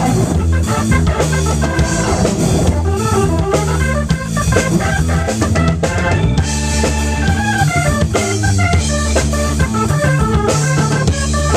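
Rock band playing an instrumental passage: a Hammond Porta-B organ holding chords over a G&L L-2000 electric bass line, with a Tama drum kit beating steadily and cymbals crashing.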